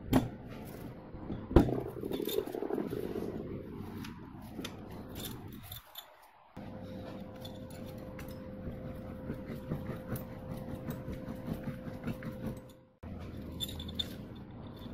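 Metal engine parts and tools being handled during reassembly: two sharp clinks in the first two seconds, then quieter scraping and light clinking.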